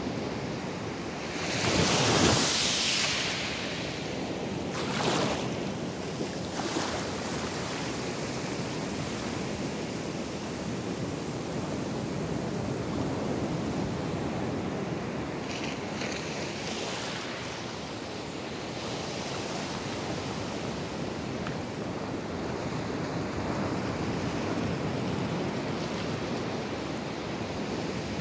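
Atlantic surf: waves breaking offshore and washing up a flat beach in a steady rush, with a louder surge of wash about two seconds in and two smaller ones a few seconds later.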